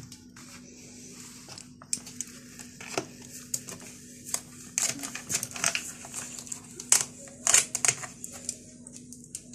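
Metal ice-cream scoop scraping through frozen homemade ice cream in thin plastic tubs, the tub crackling and clicking as it flexes. Irregular scrapes and clicks, busiest about five to eight seconds in.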